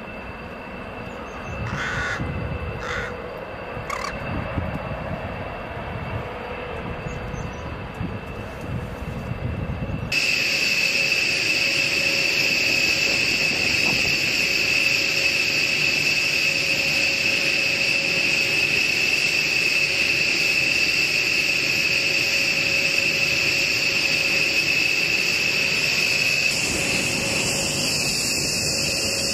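Crows cawing a few times over a low rumble. About ten seconds in, this gives way suddenly to the steady high whine of a B-1B Lancer's General Electric F101 turbofan engines running, several high tones held level.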